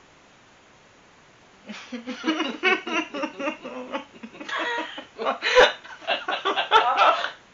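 Human laughter in quick, gasping bursts, starting about two seconds in and lasting several seconds, with two sharp clicks near the end.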